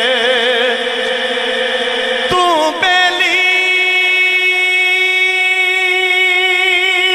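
Male voice singing Punjabi Sufi kalam in a long wordless melisma: a wavering, ornamented note, a brief break a little over two seconds in, then a long steady held note.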